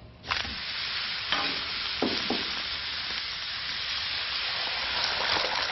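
Steak and eggs frying on a hot griddle: a loud sizzle that starts suddenly about a third of a second in and keeps going, with a few short spatula strokes in the first few seconds.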